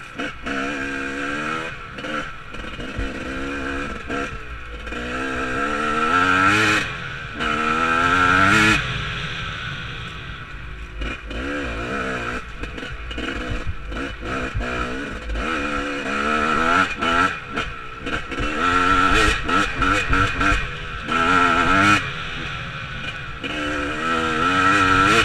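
Enduro dirt bike engine under way on a rough dirt trail, revving up again and again as the rider accelerates, rising in pitch each time, then easing off between pulls.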